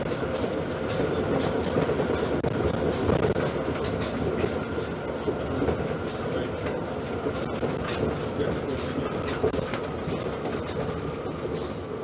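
Interior of a moving MP 73 rubber-tyred Paris metro train: a steady running rumble and hum with scattered sharp clicks and knocks, getting a little quieter near the end.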